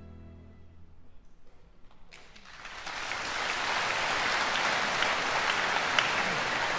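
The last chord of a string ensemble with harpsichord fades out. After a short hush, the audience starts applauding about two seconds in, and the applause grows fuller and holds steady.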